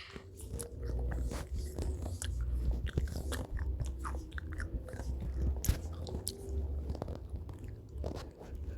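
A person laughing almost silently and wheezing close to the microphone: breathy puffs with irregular clicks and crackles from the mouth and throat.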